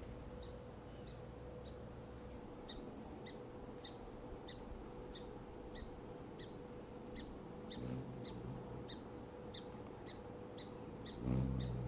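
A short, high, single-note chip call repeated evenly at about two a second, from a small animal calling near the feeder. Near the end a louder low hum comes in.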